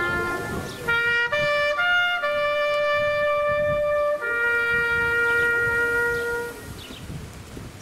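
Trumpet playing a slow call of long held notes that climb in steps and then fall back, sounded for the lowering of a flag to half-mast. The last note ends about six and a half seconds in.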